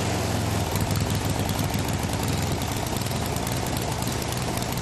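Gas-engine two-stage snowblower running steadily, its auger churning through snow and the chute throwing it out.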